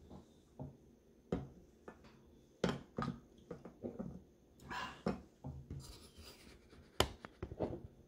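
Scattered light clinks and scrapes of metal cutlery: a spoon knocking and stirring in a ceramic coffee mug and a knife and fork on a plate. One sharper clink comes about seven seconds in.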